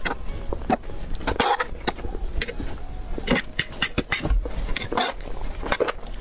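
Close-miked eating sounds: irregular chewing, slurping and crunching noises, several a second, over a low steady hum.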